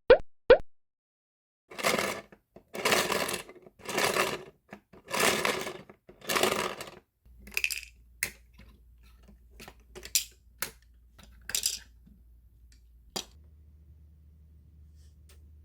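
Plastic toy packaging and parts being handled: five rustling, crinkling passages of about a second each, then scattered light plastic clicks and taps over a faint low hum.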